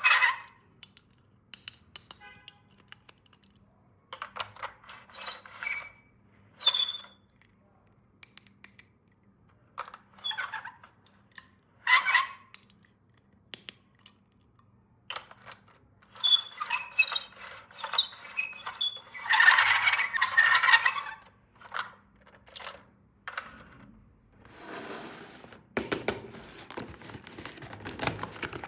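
Hands handling plastic toy pieces and packaging: scattered small clicks and taps, a longer crinkly rustle a little past the middle, and steady rubbing near the end.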